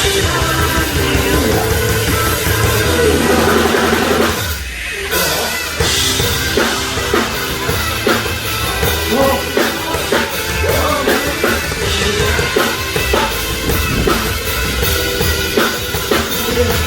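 Live rock band playing through a PA system during a sound check, the drum kit with kick and snare prominent. The music thins out briefly about four and a half seconds in, then carries on.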